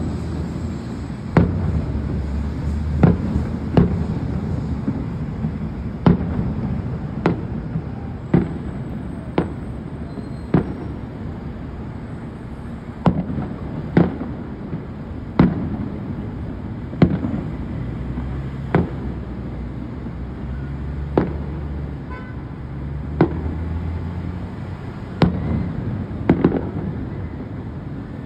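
Aerial firework shells bursting in a steady display, a sharp bang every second or two, over a steady low background rumble.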